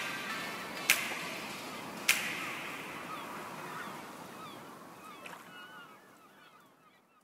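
Background music fading out, with two sharp percussive hits in the first few seconds and short gliding chirp-like tones as it dies away.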